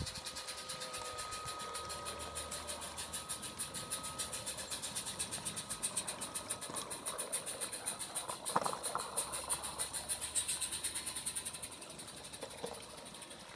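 Garden-scale model train running past on its outdoor track with a fast, even rhythmic sound. It grows louder about two-thirds of the way through as the wagons pass close, then fades near the end.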